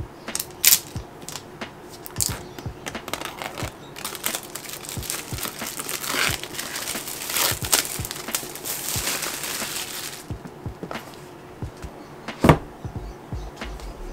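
Clear plastic shrink wrap being pulled off a cardboard iPad Pro box: scattered crackles at first, then a dense run of crinkling and tearing for several seconds. Near the end comes a single sharp knock, the loudest sound, as the box is handled on the desk.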